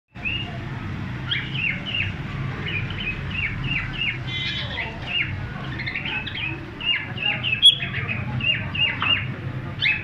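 Cockatiels chirping: a rapid, continuous string of short whistled chirps, each falling in pitch. A sharp click cuts in a little before the end.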